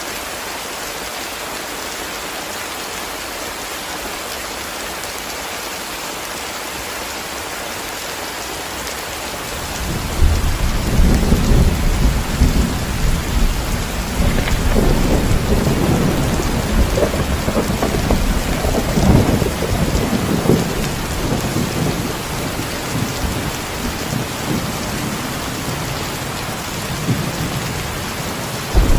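Steady heavy rain hissing; about ten seconds in, a long roll of thunder comes in suddenly, rumbles for several seconds and slowly dies away, and another thunderclap starts right at the end.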